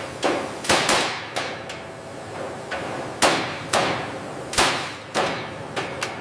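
Hammer blows: about a dozen sharp, irregularly spaced strikes, each ringing briefly.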